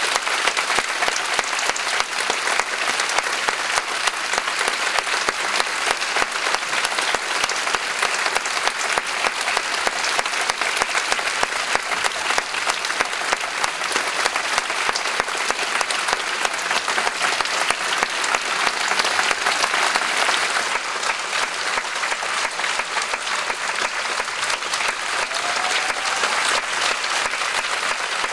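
A theatre audience applauding steadily: many hands clapping in a dense, unbroken patter.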